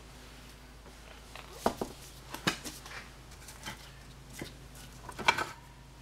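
A new motorcycle rear tire being set at an angle and forced onto a soaped, spoked BMW R1100R rim: scattered knocks and clicks of rubber and metal, the loudest about five seconds in.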